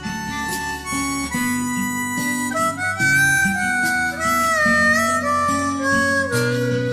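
Instrumental break in a Chinese pop ballad: a sustained lead melody that wavers in pitch about halfway through, played over guitar and bass accompaniment, with no singing.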